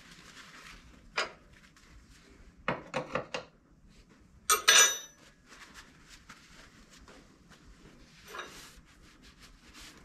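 Metal tools and parts being handled, giving a few short knocks and clinks. The loudest comes about four and a half seconds in, with a brief metallic ring.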